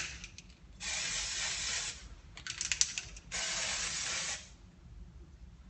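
Aerosol can of temporary hair-colour spray hissing in two bursts of about a second each, with a short clicking rattle between them.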